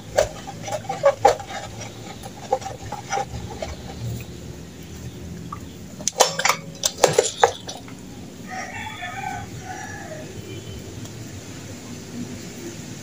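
Clicks, knocks and rubbing from a brush cutter engine being handled and wiped with a rag on a concrete floor, with a cluster of sharp knocks about halfway through as the engine is turned onto its side. Chickens cluck in the background.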